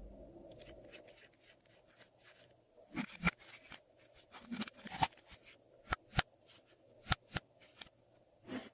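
Glossy slime being worked by hand, giving a run of sharp, sticky clicks and pops at irregular intervals.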